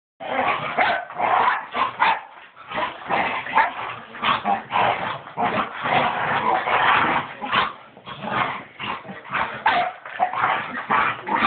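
Dogs play-fighting: a rapid, almost unbroken string of barks and yips.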